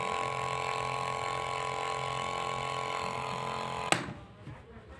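Battery sprayer's electric pump motor running with a steady hum, then switched off with a sharp click about four seconds in.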